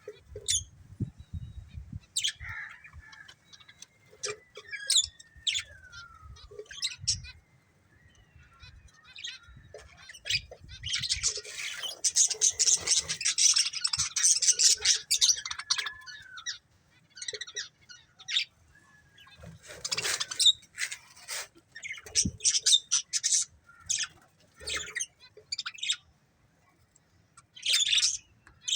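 Pair of budgerigars chirping and chattering, with a dense run of rapid warbling chatter about midway.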